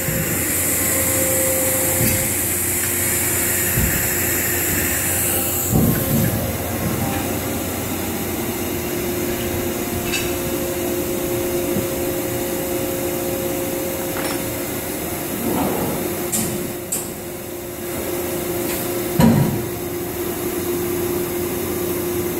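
Doosan HP 4000 II horizontal machining center humming steadily while powered up and idle, not cutting. A high hiss stops after about five seconds, and a couple of short knocks come through, the loudest near the end.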